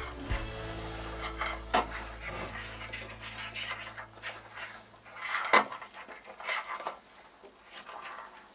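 A metal fork scrapes and clinks against a glass mixing bowl while stirring flour and water into a soft, shaggy dough. There are irregular clinks, the sharpest about two thirds of the way through. A low steady hum fades out over the first half.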